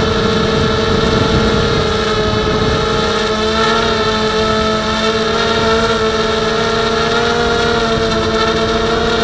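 Blade 200QX quadcopter's motors and propellers giving a steady multi-pitched whine in flight, recorded by the camera mounted on the craft right beside the props, over a rough low rush of noise.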